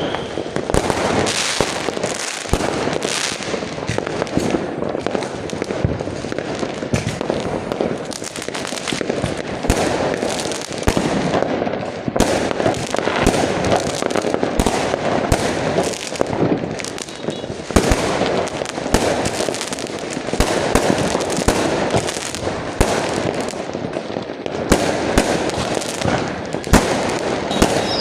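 Fireworks going off in a dense, continuous barrage of overlapping bangs and crackling.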